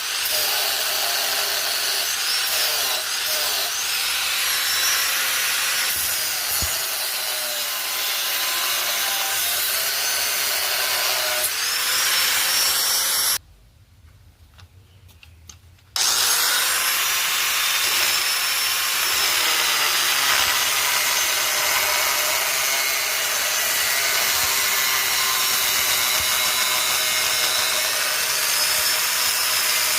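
Power tool grinding into the steel of a chainsaw guide bar, its motor pitch wavering as the load changes. The sound breaks off abruptly about 13 seconds in and starts again about two and a half seconds later.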